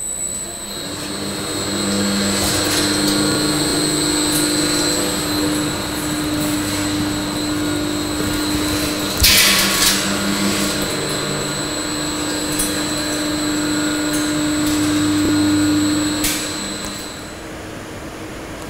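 STS DME01 electric drum mixer running, turning a clamped 200-litre steel drum end over end: a steady motor hum with a high whine, a few knocks, and a short loud clatter about nine seconds in. The sound drops away shortly before the end.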